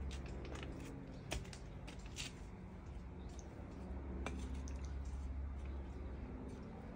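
Small hand trowel digging and scraping in garden soil as carrots are harvested: scattered short scrapes and clicks over a steady low rumble.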